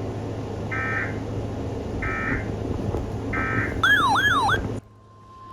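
Three short bursts of Emergency Alert System digital header data, about 1.3 seconds apart: the end-of-message code that closes an alert. They are followed by a brief, warbling siren-like tone that cuts off abruptly. Near the end a steady single alert tone begins.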